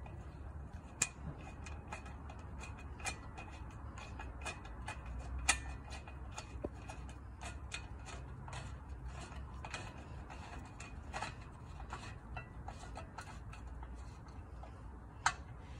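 Screwdriver turning a small screw into a metal bracket: a string of light, irregular metallic clicks and ticks, with a few louder clicks a few seconds apart.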